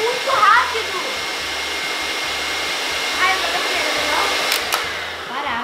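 Arno stand mixer's motor running steadily with its beaters churning thick slime as pink colouring is mixed in. Two sharp clicks come near the end, and then the motor winds down.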